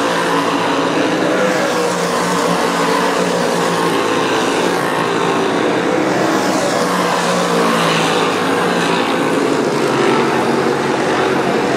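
Dirt modified race car engines running hard as the cars race around the oval, the engine pitch rising and falling as they pass and come through the turns.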